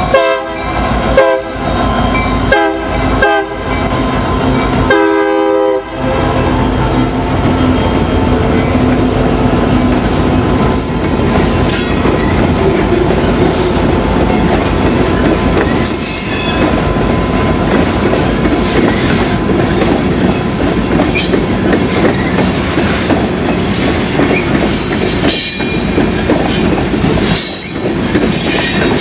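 Air horn of BNSF GP60M diesel locomotives passing close by, sounding four short blasts and then a longer one about five seconds in. After it, a long train of covered hopper cars rolls past with loud, steady wheel clatter and a few brief high wheel squeals.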